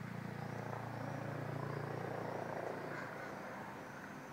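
Distant engine drone, a steady low rumble that swells to its loudest about halfway through and then fades a little.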